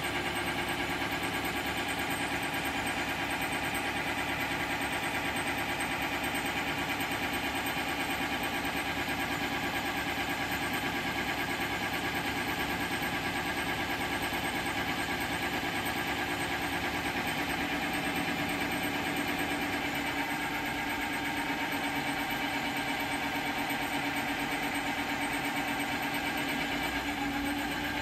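Tractor engine running steadily, driving a PTO-mounted tree shaker through its shaft while the shaker's clamp grips a tree trunk.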